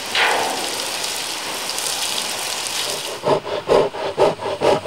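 Stream of water from a hose spraying onto a Himalayan black bear's thick coat, a steady hiss. About three seconds in it gives way to a rhythmic rasping at about three strokes a second.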